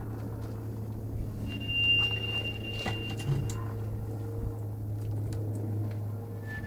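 A steady low drone runs throughout. Near the middle, a thin, high-pitched screech is held steady for about two seconds. These are the loud screeching and groaning noises that the recordist could not place, though he notes that trains braking and running on the nearby railway sound similar.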